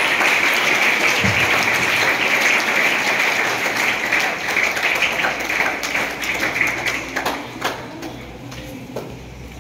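Audience applauding: a dense patter of many hands clapping that thins out about seven seconds in to a few scattered claps, then dies away.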